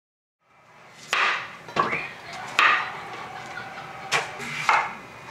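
Kitchen knife slicing a raw carrot on a bamboo cutting board: about five sharp knocks of the blade striking the board, unevenly spaced. The sound fades in after a short silence.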